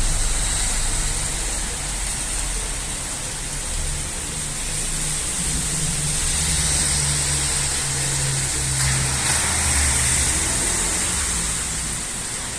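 Heavy rain falling steadily as an even hiss, with a low steady hum underneath that swells in the middle and then eases off.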